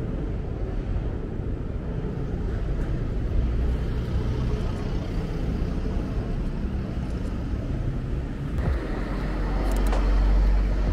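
Urban street traffic: a steady low rumble of passing vehicles, growing louder as a vehicle comes closer about three-quarters of the way through.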